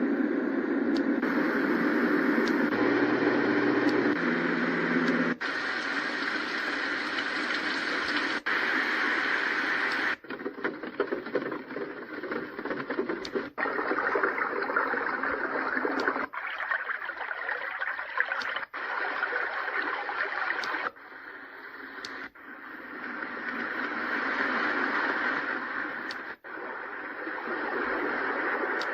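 Color Noise sound machine playing its white-noise-type sounds one after another: a steady hiss that changes to a different noise, higher or deeper, about every two to three seconds as the sounds are stepped through.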